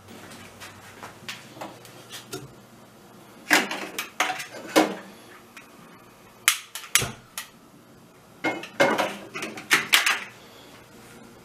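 Non-stick frying pan clattering against the metal grates of a gas hob as it is handled and set down on a burner: sharp knocks and scrapes in three bunches.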